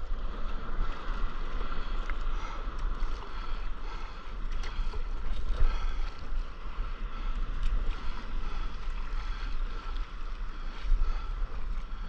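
Wind rumbling on the microphone over the wash and lapping of sea water close by as a stand-up paddleboard crosses small ocean swells, with a few small splashes.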